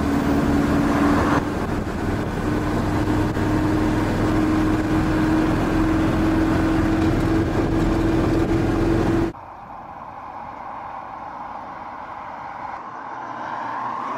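Road and engine noise of a moving car heard from inside the cabin: a steady drone with one tone that rises slightly. About nine seconds in it cuts off suddenly to a much quieter steady hum, with a faint tone rising near the end.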